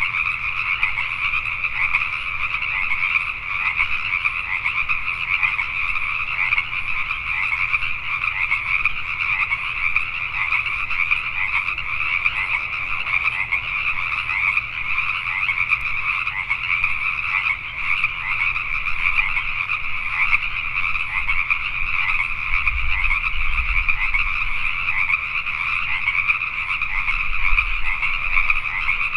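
Dense chorus of many Pacific tree frogs calling over one another without a break.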